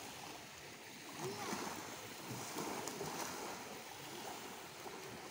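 Small lake waves lapping on a sandy shore, a steady wash, with faint voices in the background from about a second in.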